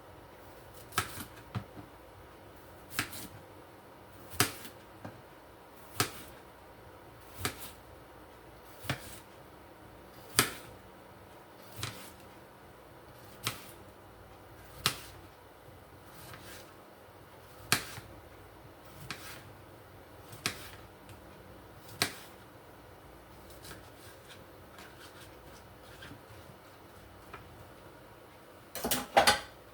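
A series of sharp taps or knocks, one about every second and a half, with a quick cluster of several taps near the end.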